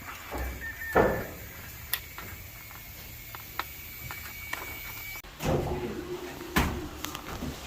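Knocks and thumps of hardware being handled during installation of an air-conditioner unit. There is one heavy knock about a second in and a sharp click a second later. Denser clattering and two more thumps come in the second half.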